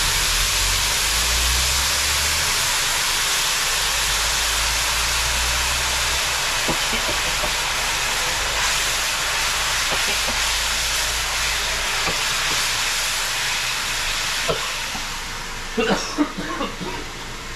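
Water just poured into a hot pot of browned, curried stew base boiling up hard and hissing with steam, with a low rumble under it for most of the time. The hiss eases near the end, and a few sharp knocks follow.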